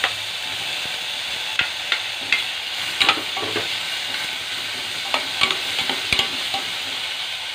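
Chopped squash and garlic sizzling in a hot stainless steel pot while a spatula stirs them. The spatula scrapes and knocks against the pot about nine times over the steady sizzle.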